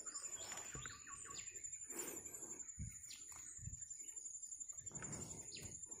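Faint, scattered bird chirps over a steady high-pitched whine, with a few soft knocks.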